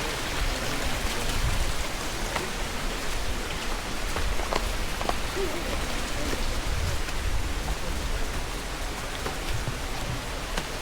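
Steady rush of fast-flowing river water near a waterfall, an even hiss-like roar with a few faint clicks over it.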